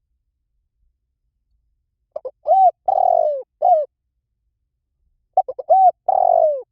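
Spotted dove cooing: two phrases, about two seconds in and again near the end, each a few short coos around one longer coo that falls at its close.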